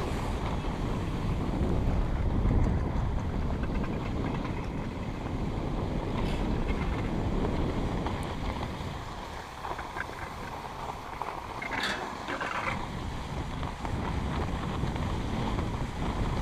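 Steady wind rush on the microphone mixed with the hiss of skis sliding over packed snow while being towed uphill on a button drag lift.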